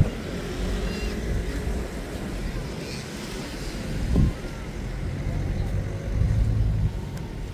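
Outdoor background noise: a steady low rumble with faint voices, a short louder thump about four seconds in and a swell of rumble near the end.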